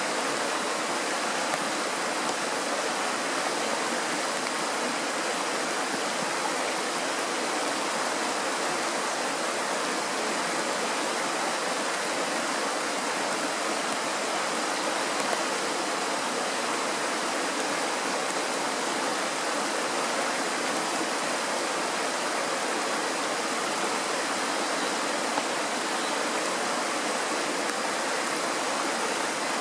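Mountain stream rushing over a small rocky rapid, a steady, unbroken rush of water.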